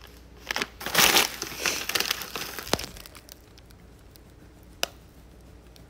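Flexible plastic dog-treat bags crinkling as they are handled and swapped, in a few short rustles with the loudest about a second in, followed by two sharp clicks.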